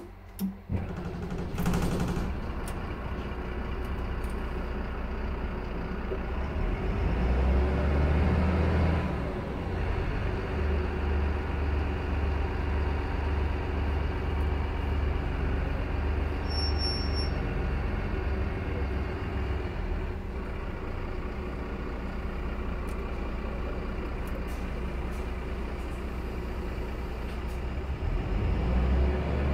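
Mercedes-Benz OM906hLA 6.4-litre inline-six diesel in a Citaro city bus, started with a short crank after a couple of clicks, then idling steadily. The idle rises briefly after the start and again near the end. A brief high beep sounds about halfway through.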